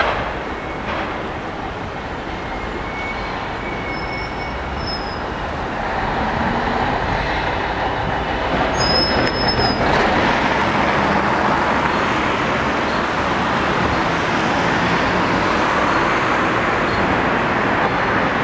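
Busy city street traffic: a steady noise of cars and trucks driving past, growing louder about halfway through. Brief high-pitched squeals come a few seconds in and again after about nine seconds.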